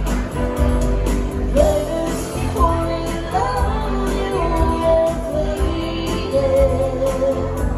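A woman singing a pop song over keyboard and electric guitar accompaniment, played live.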